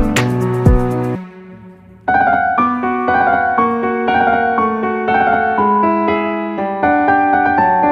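Background music: a track with a beat ends about a second in, and after a short quiet gap a piano melody begins about two seconds in.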